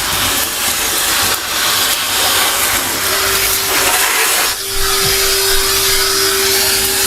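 Numatic Henry canister vacuum cleaner running, sucking up dust along the edges. A steady tone joins the noise of the suction about halfway through.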